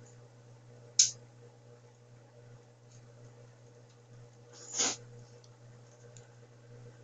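A steady low hum, with one sharp click about a second in and a brief rustling noise just before five seconds in.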